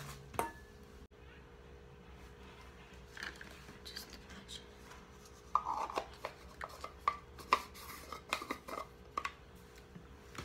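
Makeup containers and tools being handled: a run of short clicks and taps, thickest in the second half, over a faint steady hum.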